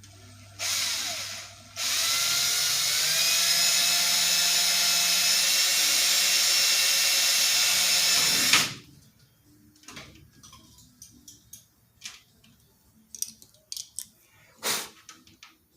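Power drill run in a short burst, then again for about seven seconds, its motor whine rising as it spins up, then stopping abruptly: drilling rivet holes for a nut plate in aluminum cowling. Light clicks and handling noises follow.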